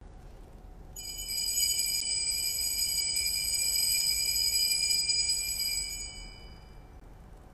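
Altar bells shaken in a steady high, many-toned ringing that starts about a second in, holds for about five seconds and fades away near the end: the bell rung at the elevation of the host at the consecration of the Mass.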